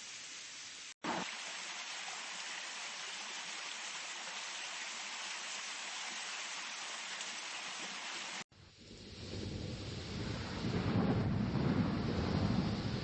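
Recorded nature sounds from a tinnitus-relief app, played one after another. First comes steady rain, which cuts out briefly twice. At the second break, about eight and a half seconds in, it gives way to a thunderstorm, whose low rumbling thunder and rain grow louder toward the end.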